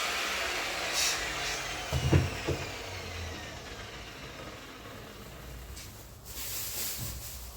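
Power polisher winding down after being switched off, its whine falling in pitch, with two low knocks about two seconds in as it is handled or set down.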